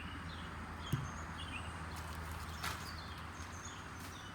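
Small birds chirping in short, repeated falling notes over a steady low hum and outdoor hiss. A sharp knock comes about a second in, and a lighter click near the middle.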